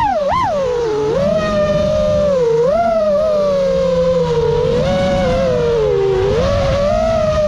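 Brushless motors of a 6S FPV quadcopter (Emax LS2207 with Gemfan Hurricane props) whining, the pitch swooping down and back up twice in quick succession near the start as the throttle is chopped and punched, then wavering up and down with the throttle through turns.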